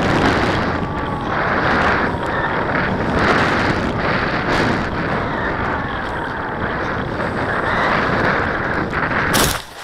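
Wind rushing over the onboard camera's microphone on a Bixler 2 RC foam plane in low flight, with the faint whine of its electric motor slowly falling in pitch. Near the end, a short loud crunch as the plane touches down in the grass, after which the sound drops away.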